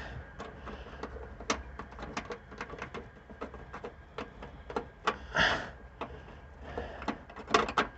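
Irregular small clicks and scrapes of a bolt and fingers fumbling against the truck's metal while trying to start the bolt in its threaded hole. There are louder scraping sounds about five and a half and seven and a half seconds in.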